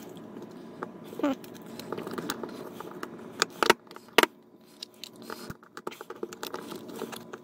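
Pliers cracking and snapping pieces off the brittle plastic base of an LED light bulb: a sharp crack about a second in, a cluster of loud snaps around three and a half to four seconds in, and small clicks and scrapes between them. The plastic has gone brittle with age and heat.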